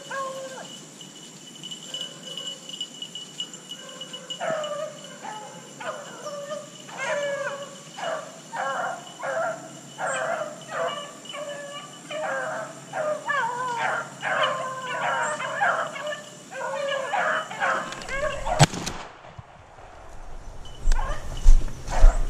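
A pack of beagles baying on a rabbit's trail, the calls coming thick and fast from about four seconds in. Near the end a single shotgun shot at the rabbit cuts across them, and the baying briefly stops.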